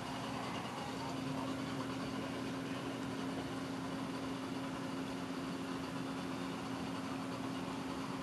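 Reef aquarium pumps and water circulation running: a steady hum with one constant low tone over an even hiss.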